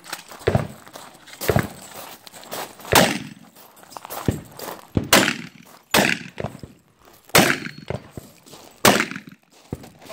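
Gunshots from a long gun in a competition string: about seven loud shots spaced roughly one to one and a half seconds apart, each followed by a short echo off the range.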